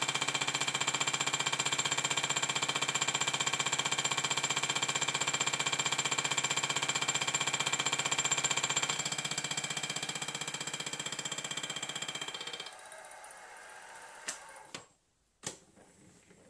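Milling machine running with a boring head taking a final cut in a cast steam-manifold saddle: a steady whine with a fast, even rattle. The lower part of the sound thins about 9 s in, the cutting sound falls away about 13 s in, and two short clicks follow near the end.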